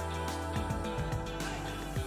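Background music: steady held tones over a run of low notes.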